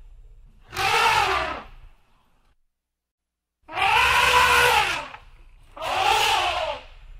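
Elephant trumpeting: three loud calls of about a second each, each rising and then falling in pitch. A low rumble runs underneath between calls, and the sound cuts to silence for about a second before the second call.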